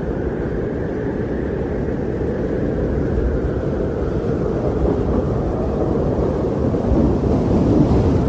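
Wind blowing steadily as a low, dull rush with little high end, swelling a little near the end.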